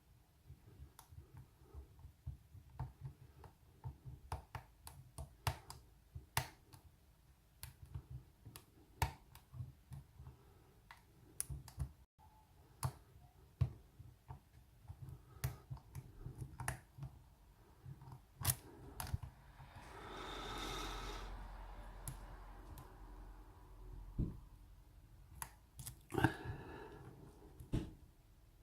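Lock picking in an aluminium American Lock Company 1205 padlock: a pick and tension tool click and scrape in the keyway in small, irregular metallic ticks as the pins are worked. A softer, longer swell of noise comes about two-thirds of the way through.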